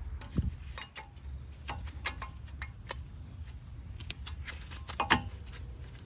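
Brake pads and their metal hardware clicking and knocking as they are handled and seated in the caliper bracket. A string of sharp metallic taps is heard, the loudest about two seconds in, with duller knocks near the start and again about five seconds in.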